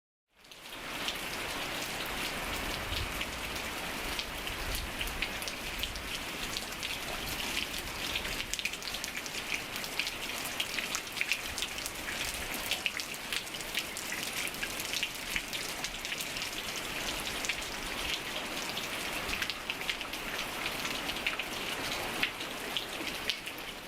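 Steady rain falling, a dense hiss full of individual drop hits. It fades in quickly at the start and cuts off abruptly at the end.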